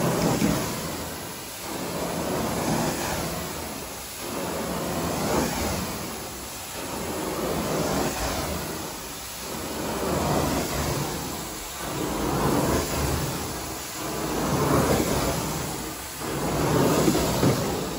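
Carpet-cleaning machine worked over carpet in back-and-forth strokes, its rushing noise swelling and fading about every two seconds.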